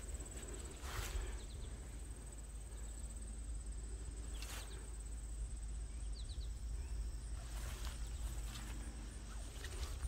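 Footsteps swishing through long grass on a trail, with a steady high-pitched insect trill throughout and a low rumble underneath.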